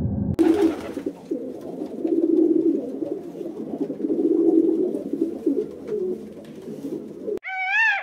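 Pigeon cooing in low, drawn-out phrases repeated several times. Near the end it cuts off abruptly and a higher call with a rising-and-falling pitch begins.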